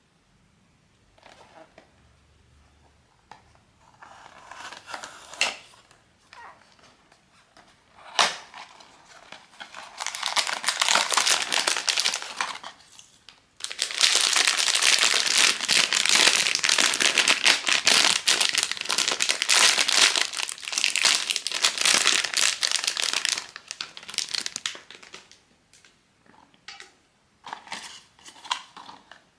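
Plastic blind-box packaging for a POP MART figurine being crinkled and torn open by hand. There are a few soft clicks at first, then long stretches of loud crinkling, and a few short crinkles near the end.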